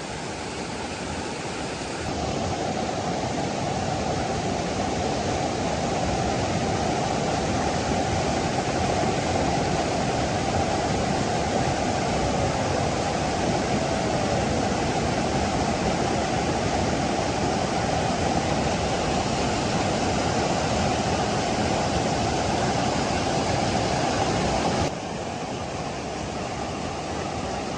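Waterfall's steady rush of falling water. It gets louder a couple of seconds in and drops back a little near the end.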